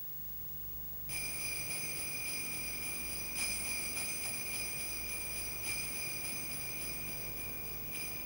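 Jingle bells ringing in a steady high shimmer, starting about a second in, with a few louder shakes, then fading out near the end.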